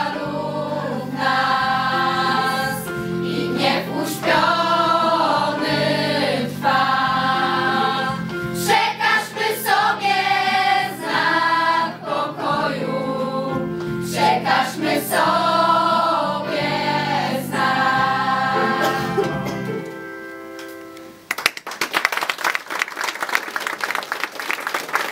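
A school choir sings a song together with steady sustained accompaniment. The singing ends about twenty seconds in, and the audience's applause follows to the end.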